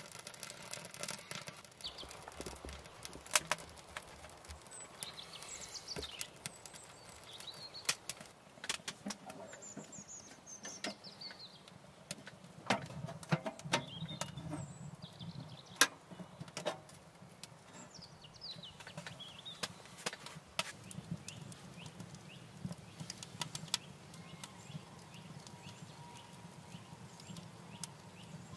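Fire catching in a small steel tent wood stove, birch bark and split firewood crackling with irregular snaps and pops. A low steady rush comes in about halfway as the fire takes hold, and a few short high falling chirps sound now and then.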